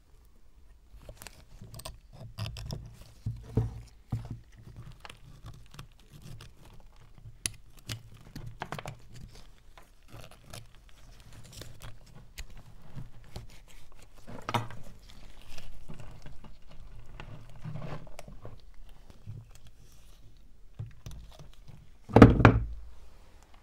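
Handling noises as caked dry mud is broken away from a rusty antique meat grinder: scattered crumbling, crackling and small knocks of dirt and metal, with one heavier thump near the end.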